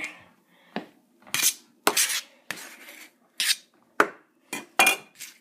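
Kitchen bowl and utensils clattering and scraping as chopped greens are emptied out of the bowl, with about ten sharp knocks at irregular intervals.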